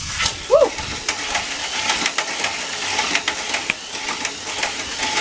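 Tamiya Mini 4WD car with an Atomic-Tuned 2 motor running fast laps on a plastic track: a steady high motor-and-gear whir with rapid clicking and clattering against the track. It is running at full speed on fresh alkaline batteries.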